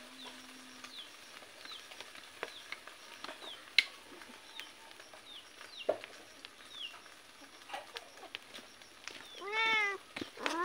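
Sharp clicks of a metal ladle against a wok over a wood fire, with short high chirps repeating throughout. Near the end comes one loud drawn-out animal cry that rises and falls in pitch.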